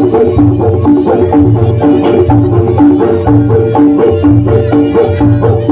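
Reog Ponorogo gamelan ensemble playing: repeated pitched gong-chime strokes over a steady drum beat, with a reedy melody line above.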